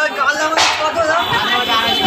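Busy market background of voices talking, with music playing, and one short rasping noise about half a second in.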